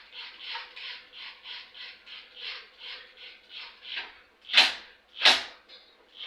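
Hand ratchet wrench being worked in quick back-and-forth strokes, about three a second, driving fasteners into aluminum; two loud metallic knocks follow near the end.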